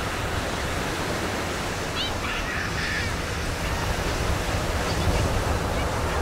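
Ocean surf breaking and washing up a sand beach: a steady rush of waves, with a heavy low rumble underneath. A few faint, short high chirps come about two seconds in.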